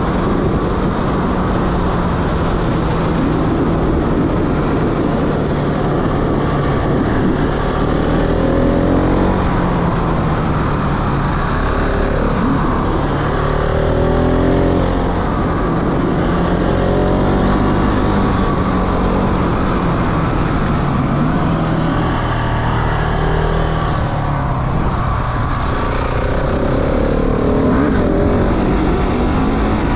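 A motorbike engine running while riding, its pitch rising several times as it is revved up.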